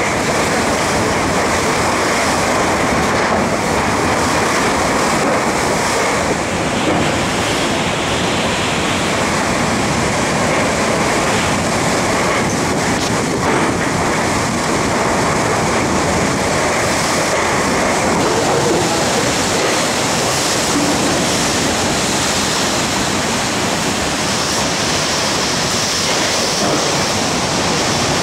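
Hurricane-force wind blowing hard and steadily through an open-sided patio roof of thatch and corrugated metal in the inner core of a hurricane: a loud, unbroken rush with a few faint knocks.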